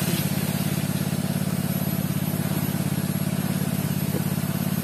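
A small Robin petrol engine running steadily at an even speed, its firing heard as a fast, even pulse.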